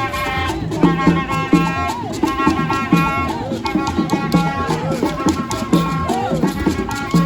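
Music with a steady beat, percussion and sustained melodic notes.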